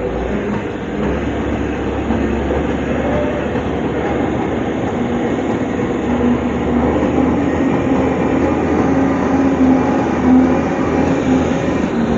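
Heavy diesel earthmoving machinery running under load: a deep, steady engine rumble that grows louder and rises slightly in pitch over the middle of the stretch.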